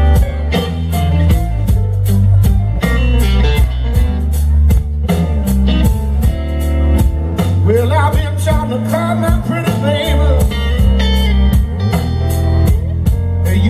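Live blues band playing a slow blues: lead electric guitar lines with string bends over bass and drums, between sung verses.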